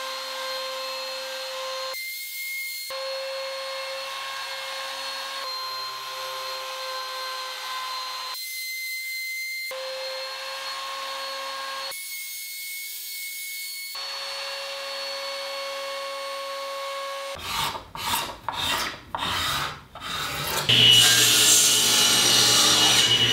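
Laminate trimmer with a mortising bit running at a steady high whine as it flushes walnut and mahogany strips down to the maple surface, in several short stretches. Near the end, after a few uneven bursts, a table saw cuts wood with a louder steady rush.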